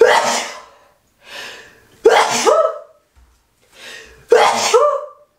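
A woman sneezing three times in a row, each sneeze about two seconds apart with a short sharp intake of breath before it; she blames having been around a dog the day before.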